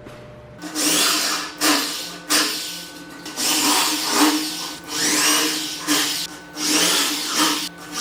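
Power tool running with a steady hum while it works wood, its noise swelling and falling about once a second.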